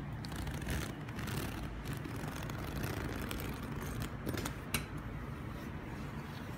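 Chunky molded-tooth zipper on a parka being pulled down, with fabric rustling and a single sharp click a little before five seconds in as the front comes apart. A steady low hum runs underneath.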